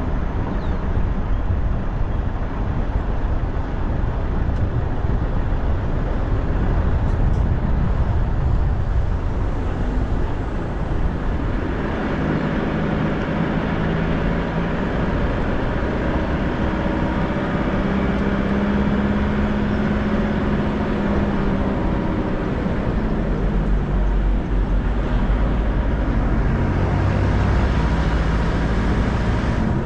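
A road vehicle driving, with a steady low rumble of engine and road noise. From about twelve seconds in, the engine's note comes through more clearly, rising and falling slowly in pitch.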